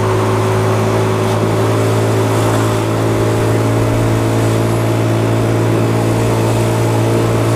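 Motor scooter engine running at a steady speed while riding, a constant even hum that holds one pitch.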